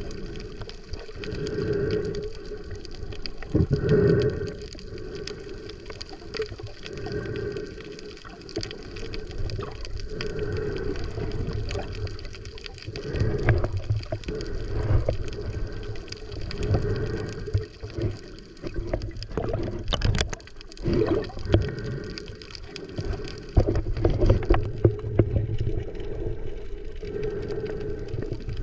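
Water sloshing and gurgling around a snorkeler's camera, swelling and fading about every two seconds, with a few sharp knocks about two-thirds of the way through.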